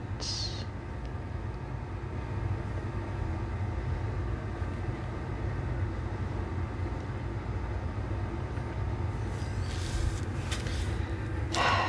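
Steady low background rumble with a faint hum over it, and a brief hiss about half a second in.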